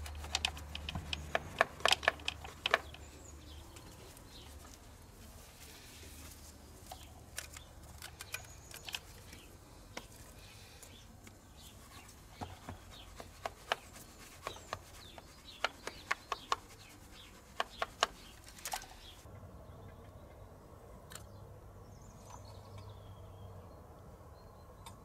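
Faint rubbing with scattered light clicks and taps as a microfiber cloth is worked around a diesel injector well in the cylinder head, over a low steady hum. The clicks stop about three-quarters of the way through.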